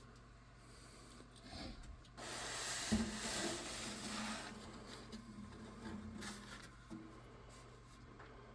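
Rubbing and scraping, with a knock about three seconds in and scattered small clicks, from hands-on work on a sheet-metal furnace vent pipe.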